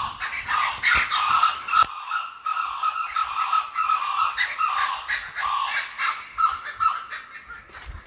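Kookaburras in a long, rapid, laughing cackle of repeated calls that thins out near the end.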